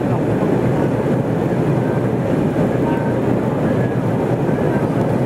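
Steady noise of an airliner's engines and rushing air heard inside the cabin during the climb after takeoff.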